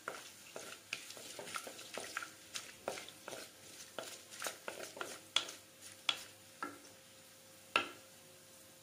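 Whole spices being stirred in hot coconut oil in a clay pot: a utensil taps and scrapes against the pot in irregular clicks over a light sizzle. The clicks thin out after about six seconds, with one sharper knock near the end.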